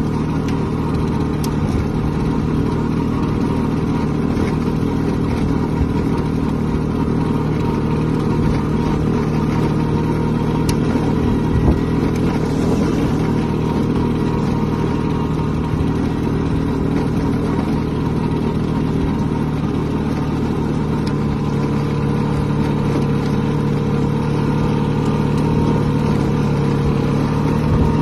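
Vespa VBB 150 scooter's single-cylinder two-stroke engine running steadily under way, heard from the rider's seat.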